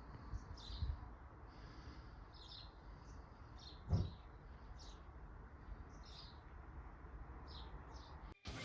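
Small birds chirping in short calls every half second or so, over a low rumble, with a single dull thump about four seconds in.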